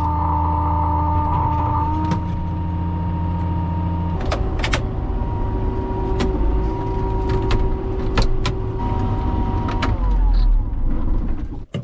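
Farm vehicle engine running steadily, its note shifting about four seconds in, with several sharp knocks or clanks over the engine in the second half.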